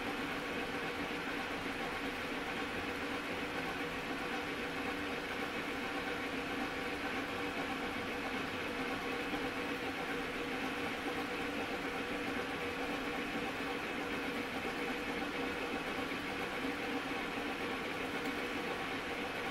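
Metal lathe running steadily with its chuck spinning: a constant mechanical hum carrying several steady tones.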